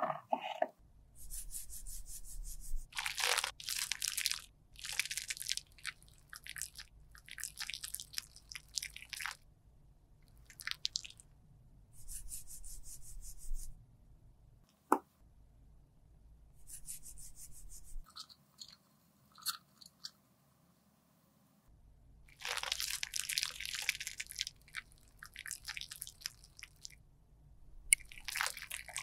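Makeup being crushed and scraped with a tool: clusters of short, gritty crunching strokes, with one sharp click about halfway through and a quieter pause before a long final run of crunching.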